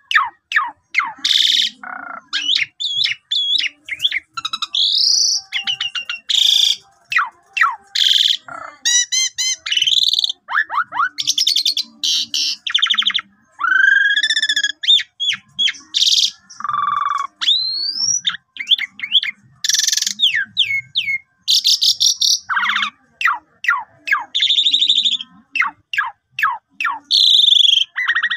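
Asian pied starling (jalak suren) singing a long, varied song: rising and falling whistles, fast trills, buzzy rattles and harsh squawks strung together in quick phrases with only brief gaps.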